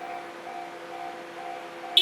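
Japanese railway level-crossing warning bell ringing in a steady repeating rhythm, a little over two rings a second, sounding while the crossing is closed for a train.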